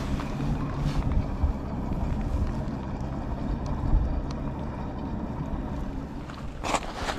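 Wind buffeting the camera microphone, a steady low rumble that swells unevenly, with a short rustle of handling near the end.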